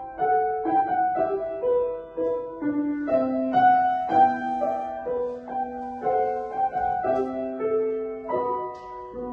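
Solo instrumental music on a keyboard instrument: a lively dance tune of quick notes over longer held low notes.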